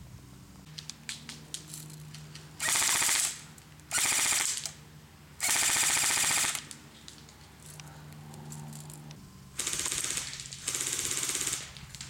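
ICS L86A2 airsoft electric gun firing full-auto in five short bursts of under a second each: three in quick succession, then a pause, then two more.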